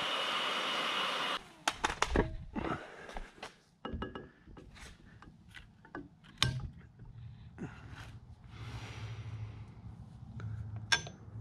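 A DeWalt handheld power tool running with a steady hiss and a thin whine, cutting off suddenly about a second and a half in. Then come scattered knocks, clicks and rattles as parts on the metal filter bracket are handled, with a faint low hum in the second half.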